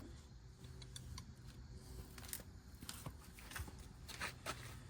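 Faint, scattered light clicks and knocks of tools and brake parts being handled during rear drum-brake work, over a low steady hum.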